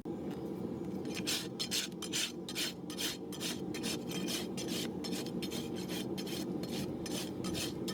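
Farrier's rasp filing a horse's hoof, in quick regular strokes of about three a second that start about a second in.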